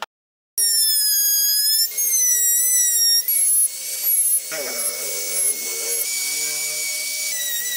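Handheld electric rotary tool with a small carving bit running at high speed while cutting tread grooves into a wooden tyre: a high whine that wavers slightly in pitch as the bit bites into the wood. It starts abruptly about half a second in.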